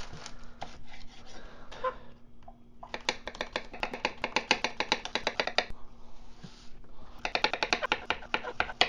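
Kitchen knife chopping zucchini on a wooden cutting board. A few scattered cuts come first, then two runs of quick, even knife strikes against the board, the second starting near the end.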